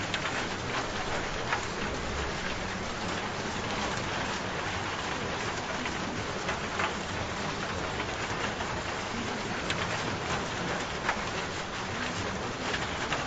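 Steady rain falling, a continuous even hiss with many individual drops ticking sharply against a surface.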